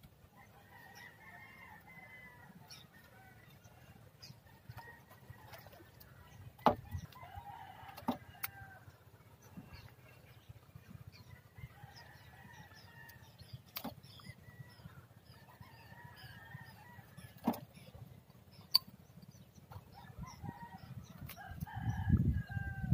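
Chickens clucking and roosters crowing, calling on and off, with a few sharp clicks scattered through. Near the end a louder low rustling rumble comes in.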